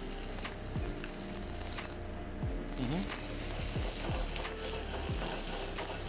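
Fresh tuna searing in a well-heated frying pan: a steady sizzle that thins briefly about two seconds in.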